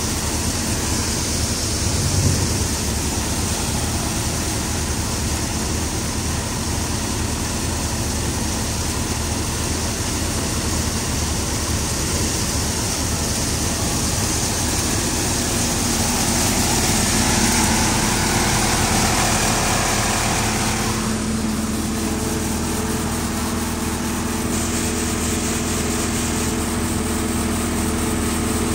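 Tractor-driven threshing machine running steadily while threshing chickpea plants: a constant engine drone under a dense hiss of machine noise. The higher hiss drops away about three quarters of the way through.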